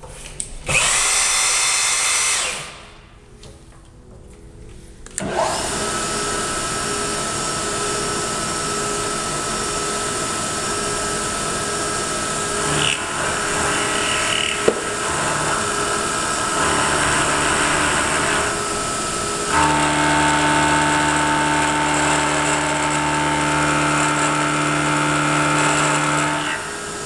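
Vertical milling machine running, its end mill taking a cleanup cut along the side of a metal block held in a machine vise. A brief loud hiss comes near the start. The steady running and cutting sound sets in about five seconds in, and its tone changes and grows about 20 seconds in.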